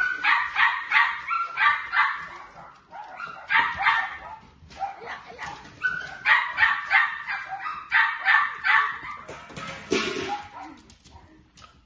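Puppies yapping in quick runs of high-pitched barks, several a second, with short pauses between runs. They bark excitedly while jumping up at a hand held out above them. The yapping dies down near the end.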